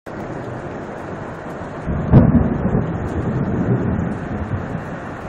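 Thunder: a sudden clap about two seconds in, its low rumble rolling on for a couple of seconds and fading, over a steady hiss of rain.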